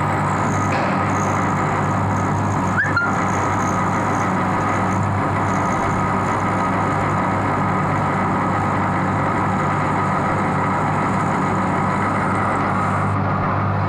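Lathe running steadily with a constant motor hum and machine noise, and one short rising squeal about three seconds in.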